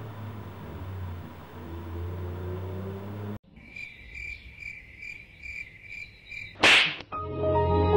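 Cricket chirping, evenly spaced at about two and a half chirps a second on one high pitch, starting abruptly after a low steady hum cuts off. A loud, sudden burst of noise follows, and then music begins.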